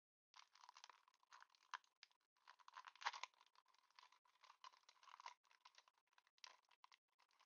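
Quiet crinkling and tearing of a foil Pokémon TCG booster-pack wrapper being opened: an uneven run of crackles, loudest about three seconds in.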